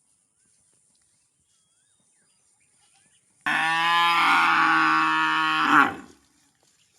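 A cow mooing: one long, loud, steady-pitched call that starts abruptly about halfway in and lasts about two and a half seconds.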